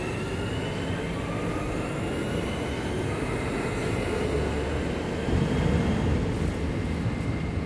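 Electric commuter train pulling out of the station, its traction motors giving a whine that rises in pitch as it picks up speed, over a low rumble that swells about five seconds in.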